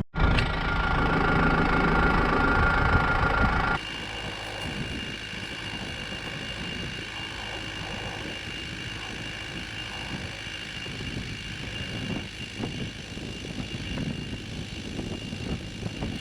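Vehicle engine running steadily, heard from on board. About four seconds in, the sound drops suddenly to a quieter, steady engine hum.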